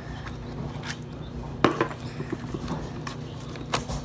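Handling noises: a few sharp clicks and small taps, two close together a little past halfway and one near the end, over a steady low hum.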